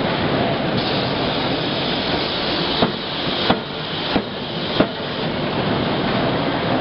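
Four quick strikes of a 31.5 kJ CNC hydraulic die forging hammer, about two-thirds of a second apart, over a steady din of forging-line machinery.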